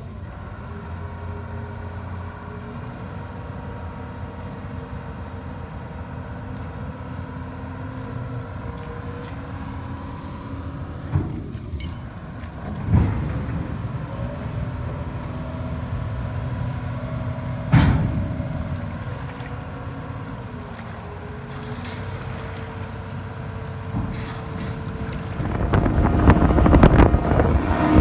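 A boat's diesel engine running steadily on the river, its pitch shifting partway through, with a few sharp knocks. Near the end the engine and wind on the microphone grow much louder.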